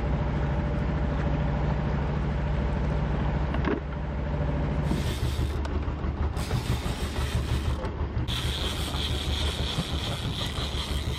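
A sailboat's engine running under way, a steady low hum with water and wind noise over it. A higher, steady whir joins in about eight seconds in.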